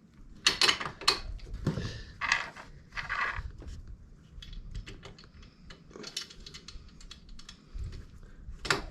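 Irregular light clicks, clinks and knocks of small metal motorcycle parts and hand tools being handled and fitted, with a few louder knocks in the first second.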